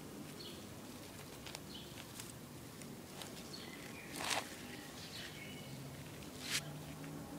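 Faint outdoor ambience with scattered short high chirps from small birds, and two brief rustles about four and six and a half seconds in.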